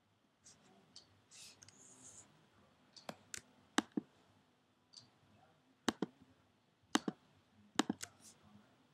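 Computer mouse clicking, about ten sharp clicks mostly in quick pairs, as mesh faces are selected one by one. A brief soft rustle comes before the first clicks.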